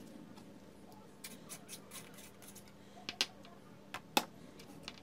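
Light clicks and taps of small parts being handled and set down on a workbench: a ring of wired diodes and a small glass light bulb with a metal screw base. The clicks come scattered at first, then two sharper knocks about three and four seconds in, the second the loudest. A faint steady hum runs underneath.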